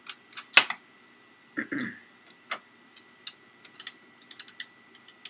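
Scattered light clicks and taps from Xbox 360 Slim plastic case parts and screws being handled, with one louder click about half a second in.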